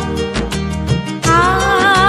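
Instrumental interlude of a Hindi film love song with no singing. A wavering, sustained melody drops out for about a second, leaving a plucked, rhythmic accompaniment, then glides back in.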